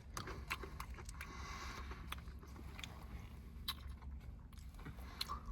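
Faint sounds of people eating Dairy Queen Blizzard ice cream with spoons: light chewing and scattered small clicks.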